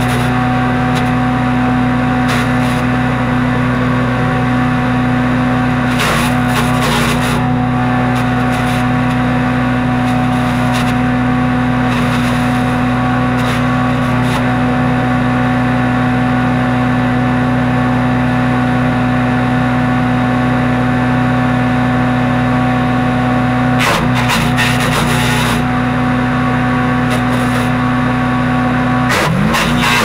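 Wood chipper's small gas engine running at a steady speed, with two short noisy bursts. Near the end the engine pitch dips and recovers as it takes a load.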